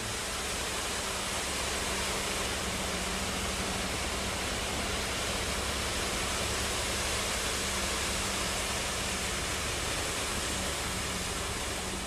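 Concrete mixer truck discharging concrete into a crane's concrete bucket: a steady rushing noise over a low, even engine hum.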